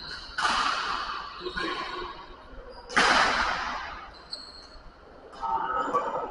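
Badminton rackets striking a shuttlecock during a rally: two sharp hits about two and a half seconds apart, each ringing on in the echo of a large hall.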